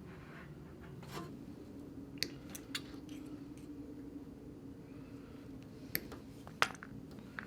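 A few short, sharp clicks and snips of small hand tools and wire being handled while the thermocouple terminal-block wiring is connected, over a steady low hum.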